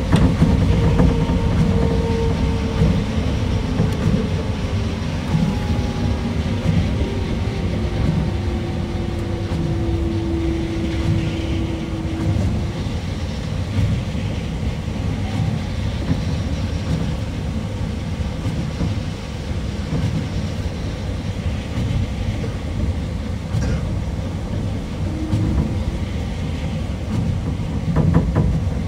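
Osaka Monorail 2000 series car heard from inside, running on its rubber tyres along the concrete track beam: a steady rumble with a traction-motor whine that falls in pitch over the first dozen seconds as the train slows. A short run of clicks near the end.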